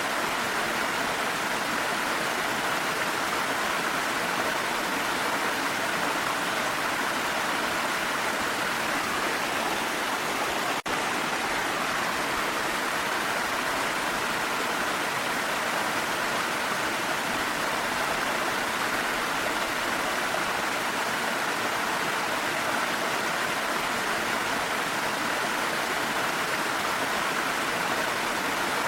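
Waterfall flowing: a steady rush of water, with one brief dropout about eleven seconds in.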